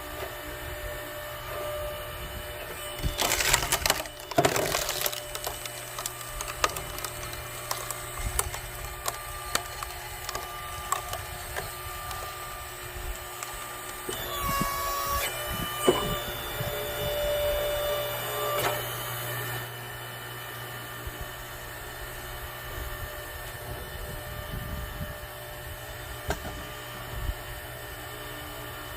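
Hydraulic log splitter running with a steady hum, wood cracking and splintering as logs split, loudest about three to five seconds in and again around the middle.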